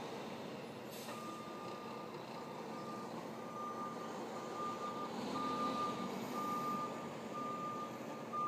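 A truck's reversing alarm beeping: a single high steady tone repeating at a little more than one beep a second, starting about a second in, over a steady background hum.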